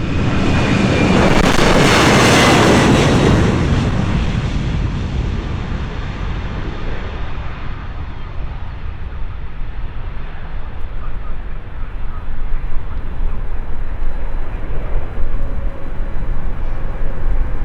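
Engines of a heavy jet airliner passing close on departure. The noise swells to a peak in the first few seconds with a faintly falling whine, then fades slowly to a low rumble.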